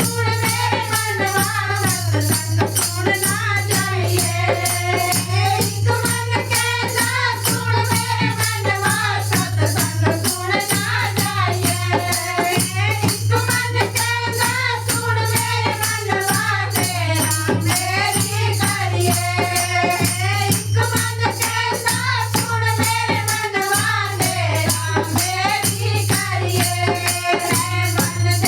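Bhajan kirtan music: a melody that bends up and down over a fast, even rattling percussion beat, with a steady low hum underneath.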